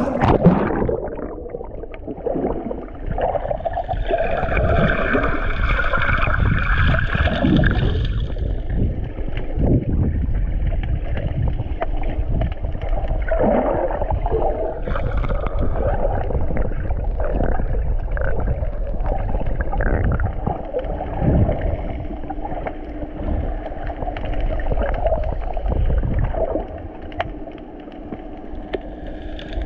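Water sloshing and gurgling around a snorkeler's waterproof camera, muffled, with little treble.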